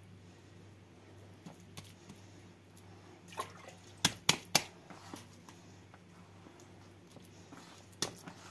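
Hands kneading wet corn-and-wheat-flour bread dough in a large plastic bowl: soft squelching, with a few sharp slaps a few seconds in and again near the end.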